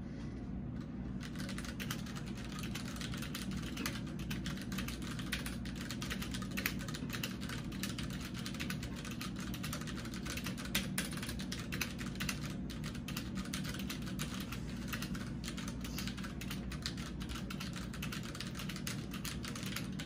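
Fast, continuous typing on a Das Keyboard 4 Professional mechanical keyboard with Cherry MX Brown switches: a dense patter of key clacks from random keys and the space bar, starting about a second in.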